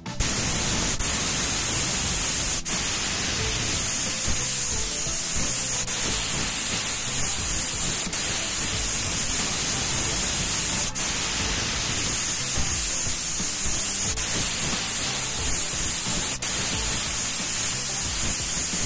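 Aerosol spray paint can (Dupli-Color Metalcast) hissing in a long, steady spray, with a few momentary breaks, over background music.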